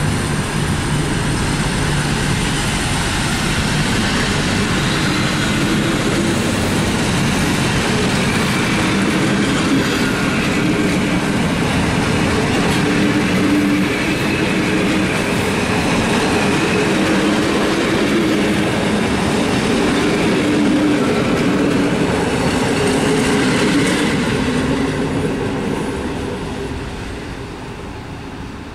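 PKP Intercity passenger coaches rolling past at close range: steady noise of wheels on the rails, fading over the last few seconds as the end of the train goes by.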